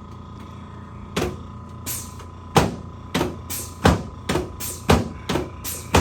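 Background music with a steady drum beat, kick and snare hits alternating, starting about a second in over a faint steady hum.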